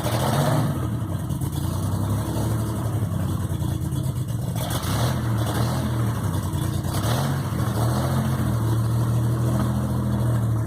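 Citroën SM's Maserati V6 running on its first start after an overhaul, idling steadily with a couple of slight rises in engine speed.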